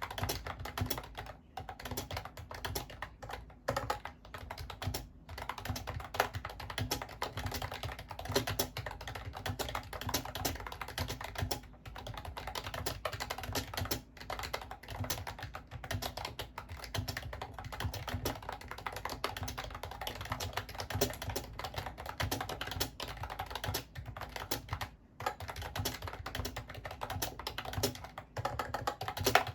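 Continuous fast typing on a Mofii Candy wireless keyboard, a dense run of key clicks with a few brief pauses.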